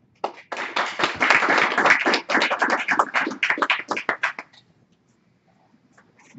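Audience applauding, dense at first, then thinning to scattered claps and stopping about four and a half seconds in.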